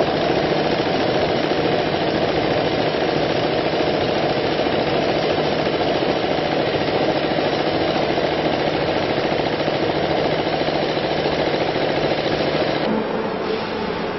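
Concrete pole production machinery running with a dense, continuous rattle and a steady hum under it. About 13 s in the sound drops slightly and changes.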